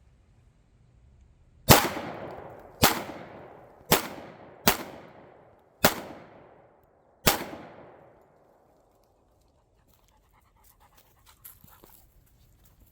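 Six shots from a Glock 20 10mm Auto pistol with a Magna-ported barrel, fired at a steady pace about a second apart. Each sharp report is followed by a short echoing tail.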